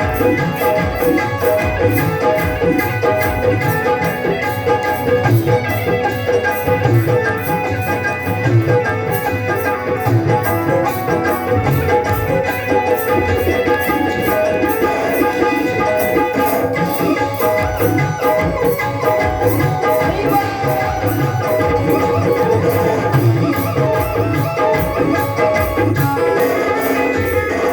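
Devotional bhajan music: a hand drum plays a steady rhythm under a sustained pitched melody, with fast, even high ticks from a metal percussion instrument.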